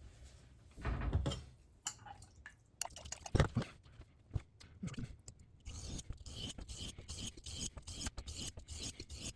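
Knife blade being stroked across a wet 1000-grit diamond sharpening stone: a few knocks and handling clicks at first, then from about halfway a steady run of quick repeated scraping passes.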